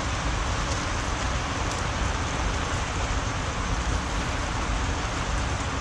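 Steady rain falling on the greenhouse roof, an even hiss with no let-up.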